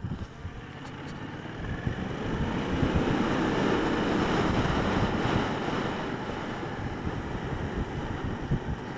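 Wind rushing over the microphone of a moving motorcycle, with the bike running underneath; the rush builds over the first few seconds as it picks up speed, then eases a little.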